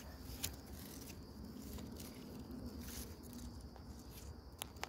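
Faint low background rumble with a few soft clicks, one about half a second in and two more near the end.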